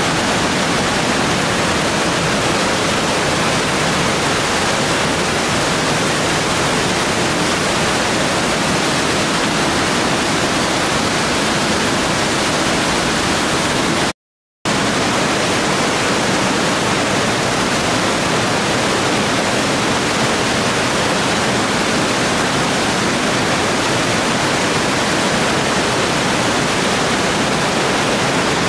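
Glacier-fed waterfall plunging and churning through a narrow rock chasm inside a cave: a loud, steady rush of water. The sound cuts out for about half a second midway.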